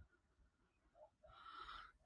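Near silence, with a soft low thump at the start and a faint brief sound near the end.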